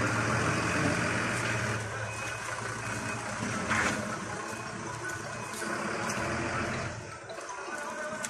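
A fire engine's motor running, its low hum strongest for the first couple of seconds and then fading, over a steady background noise.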